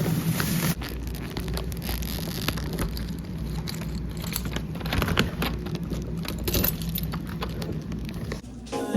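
Plastic grocery bags rustling and crinkling as groceries are handled, with irregular small clicks and knocks over a steady low hum.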